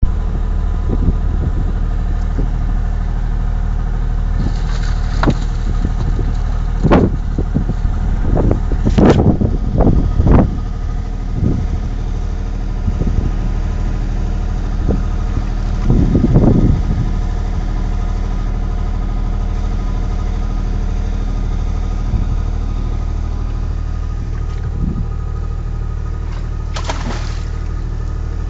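An engine idling steadily, with irregular knocks and scrapes over it, the busiest stretch about nine to ten seconds in and another about sixteen seconds in.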